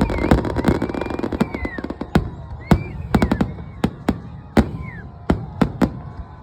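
Fireworks going off: a dense rumble of bursts thinning out into a dozen or so sharp, irregularly spaced bangs.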